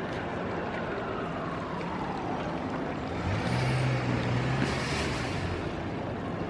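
City street traffic noise: a steady wash of distant vehicles, with an engine hum growing louder about halfway through and fading again after a second or so.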